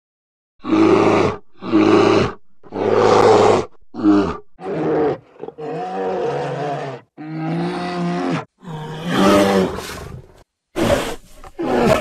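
Bear growling and roaring: a run of about ten deep calls, each up to a second and a half long, with short gaps between them.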